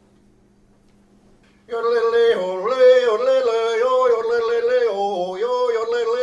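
A single voice yodeling, its pitch leaping up and down in quick steps, starting suddenly about two seconds in over a faint low hum.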